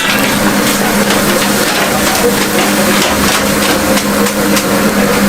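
Food-stall cooking noise: a steady low hum with a dense wash of noise and scattered short metallic clicks and clatter.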